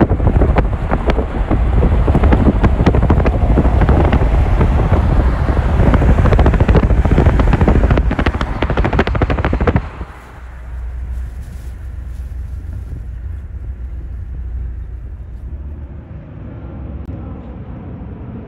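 Heavy wind buffeting on the microphone that cuts off abruptly about halfway through. After it comes a much quieter low rumble with faint, slowly drifting whining tones from a jet on approach to land.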